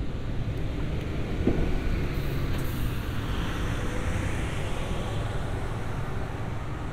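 City bus driving past on the street, its engine rumble and tyre noise swelling and easing off, with a brief high hiss a little over two seconds in.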